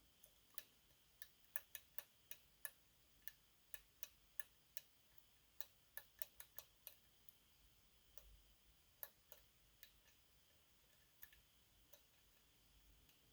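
Faint, irregular metal clicks of a lock pick working the pins inside a Medeco Biaxial pin-tumbler lock, many in quick succession in the first half, then fewer and more spread out.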